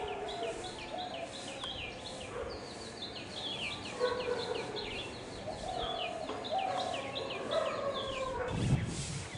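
Birds calling at dawn: a long run of short high notes, each sliding down in pitch, about three a second, over lower calls. A low bump near the end.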